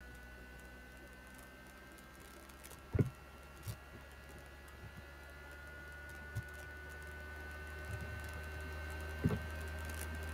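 Steady low electrical hum with a faint steady high whine, broken by a few short knocks, the loudest about three seconds in and about nine seconds in.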